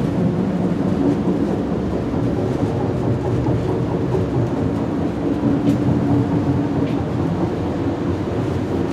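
Via Rail passenger train in motion, heard from inside a dome car: a steady rumble of wheels and running gear with a low hum through it.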